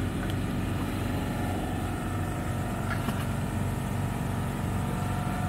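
Steady low mechanical hum, with a faint steady whine joining about a second and a half in.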